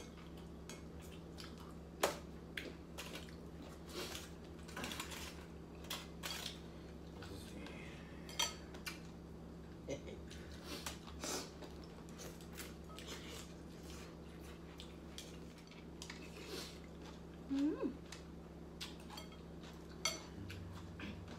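Chopsticks and spoons clicking and tapping against ceramic soup bowls while eating noodle soup: scattered light clicks at irregular intervals, over a low steady hum.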